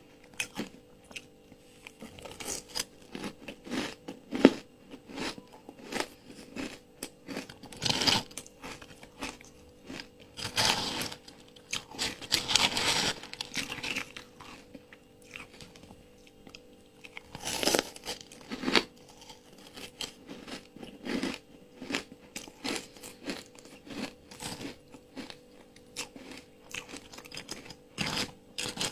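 Ice being bitten and chewed, close-miked: a run of irregular crunches with louder spells of chewing about 8 seconds in, from about 11 to 13 seconds, around 18 seconds and near the end.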